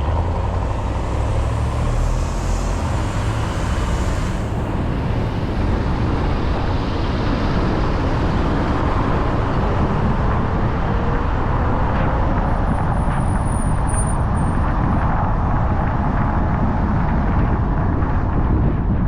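Steady tyre and engine noise of a car being driven, with a low rumble under a road hiss. A faint engine note climbs slowly about midway.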